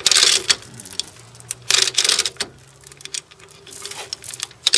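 Ratchet clicking in short bursts a second or two apart as a tow strap pulling out a crumpled car front end is tightened.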